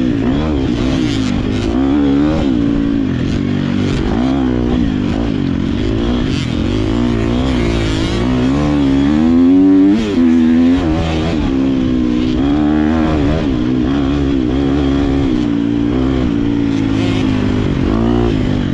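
GasGas MC250 two-stroke dirt bike engine being ridden hard through sand, its pitch rising and falling with the throttle. The sound dips briefly about ten seconds in.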